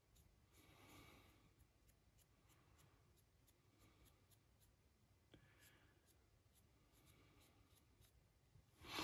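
Near silence: faint soft rustling as a small paintbrush is stroked over a resin figure, with a brief louder puff of noise right at the end.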